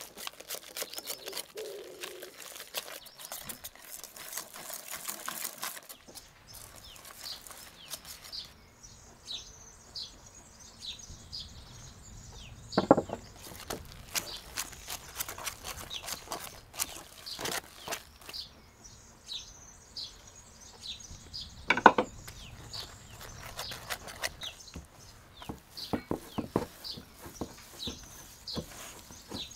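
Wire whisk working thick, crumbly dough in an enamel bowl: many short scrapes and clicks of the wires against the bowl, with two louder knocks. Near the end, a wooden spoon stirs the dough. Birds chirp repeatedly in the background from several seconds in.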